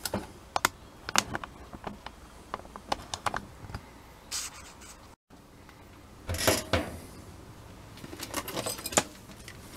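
Scattered light clicks, taps and small rattles of objects being handled, with a louder cluster of knocks about six and a half seconds in.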